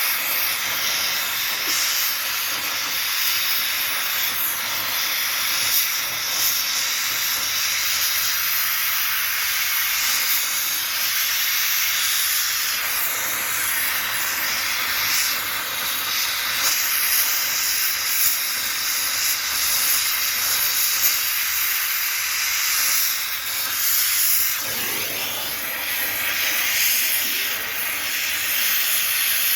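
Steady hissing from the welding of lead-acid battery plates, most likely the gas flame of a welding torch.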